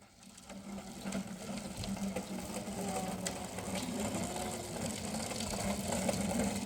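A small engine or motor starts up and runs steadily, with a low even hum that builds over the first second or two and then holds.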